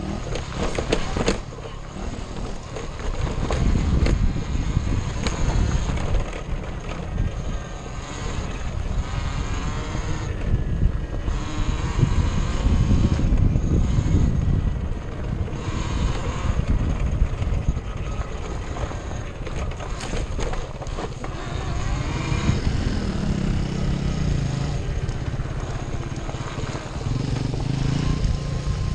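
KTM 400 EXC four-stroke single-cylinder enduro motorcycle being ridden on a dirt trail, the engine note rising and falling with the throttle over a steady rumble. A clearer, stepped engine pitch shows near the end.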